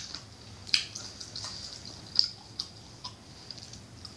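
Close-miked eating: a few scattered soft, wet mouth clicks and smacks while chewing.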